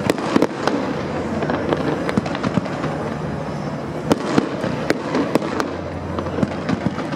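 Aerial fireworks display: shells bursting one after another, many sharp bangs over a constant dense noise from the display, the loudest bangs coming near the start and again around four to five seconds in.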